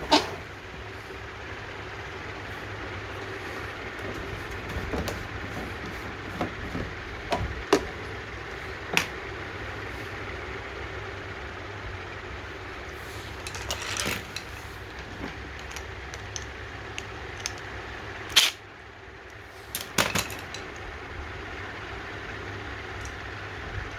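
Hand tools and small metal parts clicking and knocking now and then, over a steady background hum.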